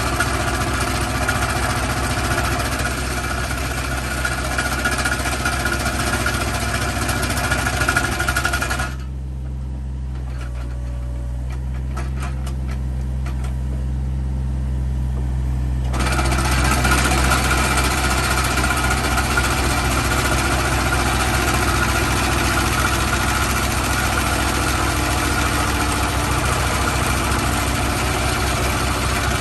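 Excavator-mounted hydraulic vibratory compaction bucket compacting fill: a loud, rapid, steady rattling over the low hum of the excavator's diesel engine. The vibration stops about 9 seconds in, with the engine still running, and starts again about 16 seconds in.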